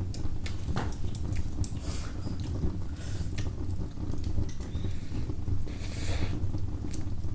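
Wood fire crackling in a fireplace: scattered sharp pops and snaps at irregular intervals over a steady low hum.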